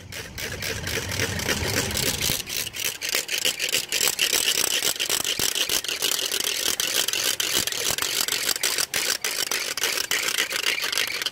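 Hand-spun ratchet rattle noisemaker clattering continuously in rapid clicks, spun to cheer passing bicycle racers.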